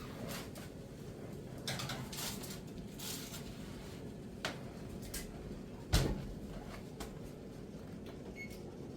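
Oven being loaded: short clattering and scraping as the baking pan goes onto the rack, a couple of small clicks, then the oven door shutting with a loud thud about six seconds in.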